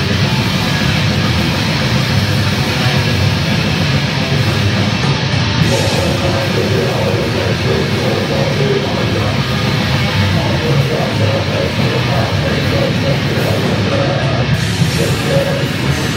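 Heavy metal band playing live at full volume, guitars in a dense, steady wall of sound with no breaks.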